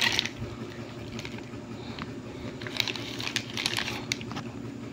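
Plastic-wrapped spare parts being handled: crinkling plastic and small clicks, bunched together about three seconds in, over a steady low hum.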